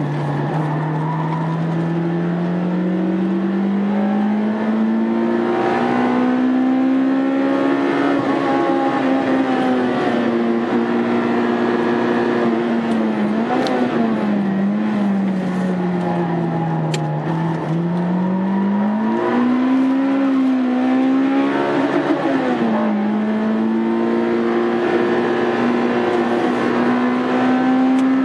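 Honda Integra Type R engine running hard on a circuit, its pitch climbing slowly at first, then rising and falling repeatedly as the car accelerates and slows, with a sharp drop in pitch a little over twenty seconds in.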